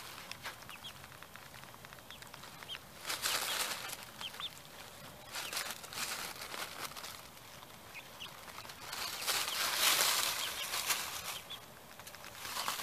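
Piglet chewing and crunching raw pumpkin, with rustling in dry leaves that comes in bursts and is loudest about ten seconds in. A few faint, short, high chirps sound now and then.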